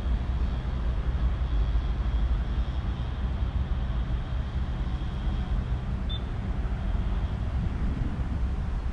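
Steady low engine rumble of motor traffic, with a faint high whine over it and a single small click about six seconds in.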